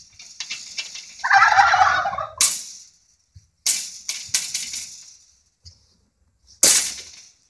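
Domestic turkeys gobbling: one loud rattling gobble about a second in, followed by several shorter sharp bursts of noise, the last near the end.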